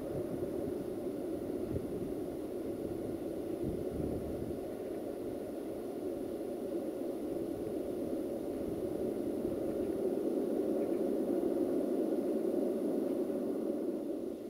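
Steady rolling rumble of a departing freight train of tank wagons running away down the track.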